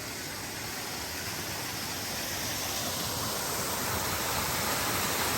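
Waterfall rushing steadily, growing gradually louder.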